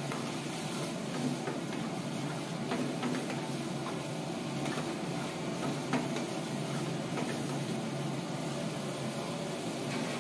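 Steady hiss of a gas burner under a kadhai of butter chicken gravy, with faint pops as the gravy simmers.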